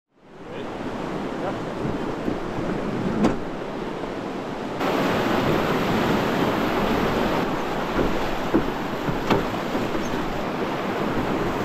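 Whitewater rapids rushing around a raft, with wind on the microphone; the rush comes in just after the start and grows louder about five seconds in. A few sharp knocks stand out above it.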